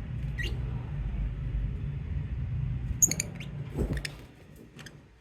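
Lovebirds giving a few short, sharp, high chirps: one about half a second in, then a cluster around three to four seconds and two more near the end. Under them is a low rumble that fades out about four seconds in.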